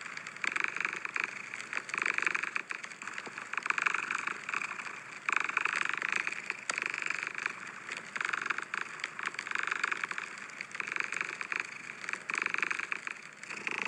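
Domestic cat purring, a breathy rasp that swells and fades about once a second with each breath.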